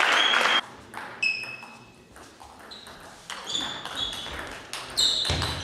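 Table tennis ball being played in a rally: a string of sharp clicks as it hits the bats and the table, several of them with a short, high ringing ping.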